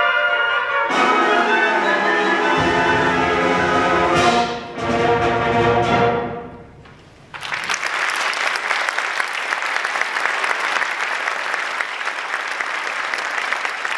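High school concert band of woodwinds and brass playing the loud closing chords of a piece, with a brief break before a final held chord that cuts off and dies away about seven seconds in. Audience applause then starts and goes on.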